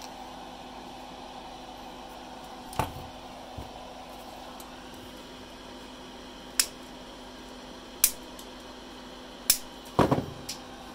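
Small side cutters snipping the ends of wires soldered to a relay circuit board: single sharp snips a second or few apart, then a short cluster of knocks near the end as the board is handled.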